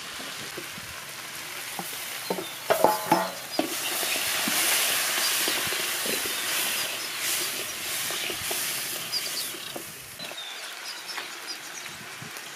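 Pieces of meat and tomato sizzling in a hot pot and being stirred with a wooden spoon, with a few sharp knocks about three seconds in before the sizzle swells.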